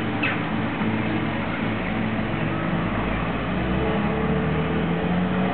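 A motor vehicle's engine running steadily at ground level, its low hum drifting slightly in pitch, with a single bird call just after the start.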